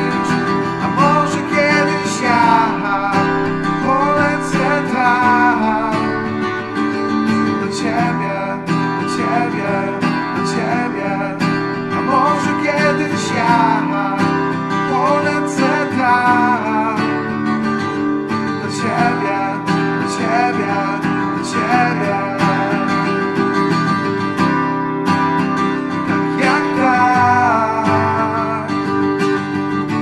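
Acoustic guitar strummed steadily under a gliding melody line, an instrumental passage of a guitar-accompanied song.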